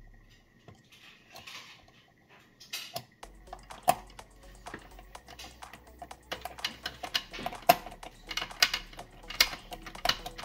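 A screwdriver turning a screw into the plastic brew-group drive housing of a Siemens EQ500 coffee machine, with hands handling the parts: a string of irregular light clicks and taps of metal on plastic. It starts about three seconds in and grows busier in the second half.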